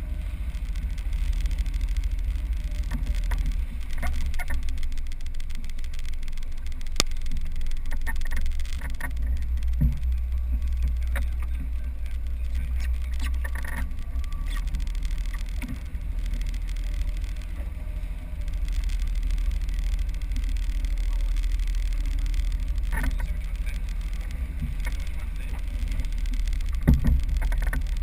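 Steady low rumble of an inflatable rescue boat under way, its outboard running and wind buffeting the bow-mounted camera, with a few knocks of water slapping the hull.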